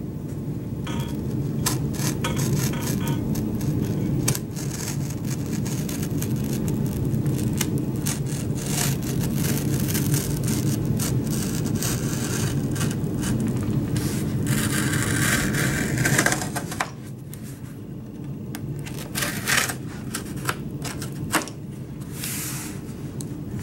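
Utility knife slicing through cardboard along a curve: a steady rasping scrape dotted with small clicks and crackles that stops about sixteen seconds in, followed by a few scattered taps and rustles.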